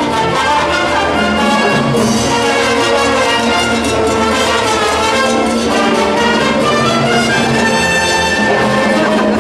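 Youth symphony orchestra playing a mambo, strings, flutes and trumpets sounding together at a steady loud level.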